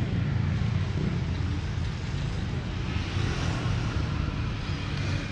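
A motor vehicle engine idling steadily, a low pulsing rumble.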